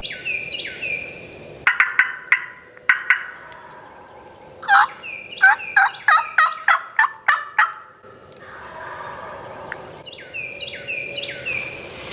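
Wild turkey gobblers gobbling: a long run of fast, rattling notes in the middle, with a few single sharp notes before it. Higher falling calls come near the start and near the end.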